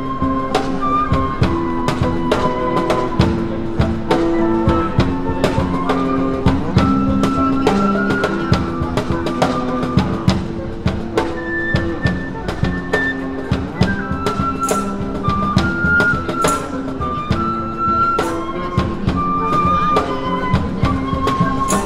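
Street band playing live: flutes carry the melody over guitar chords and a steady cajon (box drum) beat.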